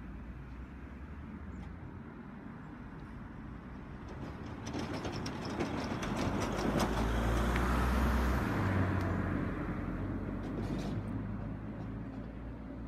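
An estate car towing a small flatbed trailer drives over a railway level crossing and past, its engine and tyre noise growing to a peak about eight seconds in and then fading. A run of clicks and knocks comes as it rolls over the rails.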